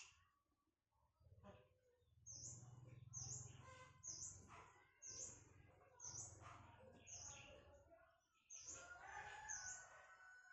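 A small bird chirping faintly over and over: short, high, falling chirps about two a second, starting a couple of seconds in.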